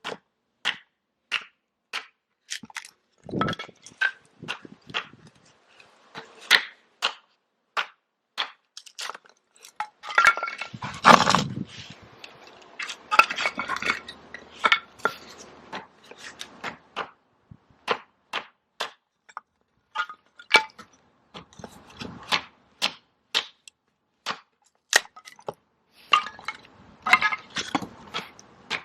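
Firewood being split into kindling: sharp wooden knocks one or two a second, with a louder cluster of cracking and splintering about eleven seconds in.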